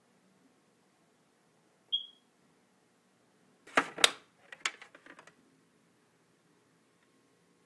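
A smoke detector gives a single short, high-pitched chirp about two seconds in: its low-battery warning. About two seconds later come two loud knocks, then a few lighter clicks and rattles.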